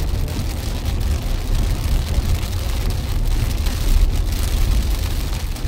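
Car driving on a wet road in rain, heard inside the cabin: a steady low rumble of road and engine with rain hissing on the body and windscreen.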